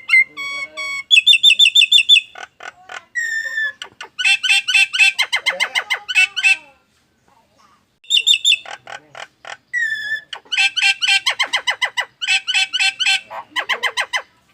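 Nias hill myna calling loudly: clear whistled notes and fast runs of repeated, harsh alarm-like notes, with a pause of about a second and a half about halfway, a strange call likened to an anti-theft alarm.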